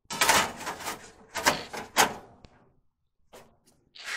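Gloved hands working at the top of an opened-up clothes dryer cabinet: a run of short scraping, rustling knocks in the first two and a half seconds, then a few faint clicks.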